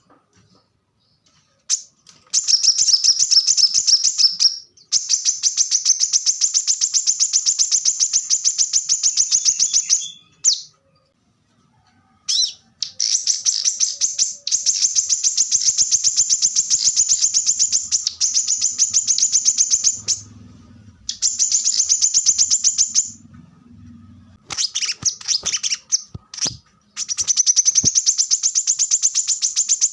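Brown-throated sunbird (kolibri kelapa) singing its rapid-fire 'tembakan' song: long runs of fast, high, repeated chipping notes, each several seconds long, broken by short pauses.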